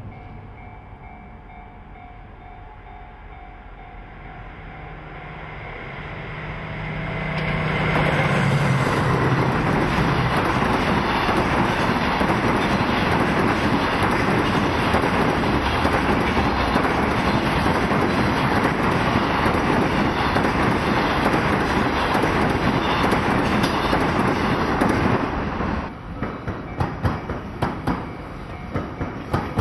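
A JR Freight DF200 diesel-electric locomotive approaching, its engine hum growing and peaking as it passes about seven seconds in, followed by a long container freight train rolling past with steady wheel rumble and clickety-clack. The rolling noise drops off suddenly about 25 seconds in, leaving sharp intermittent wheel clacks near the end.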